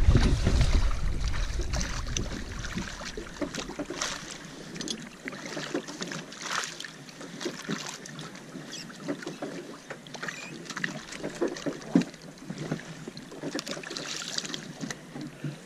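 Water splashing and sloshing at a boat's side as a gaffed amberjack is worked in and hauled aboard, with scattered knocks and clicks from the handling. Wind rumbles on the microphone for the first few seconds.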